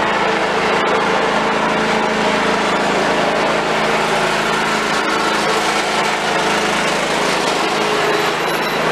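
Riding lawn mower's small gasoline engine running at a steady speed.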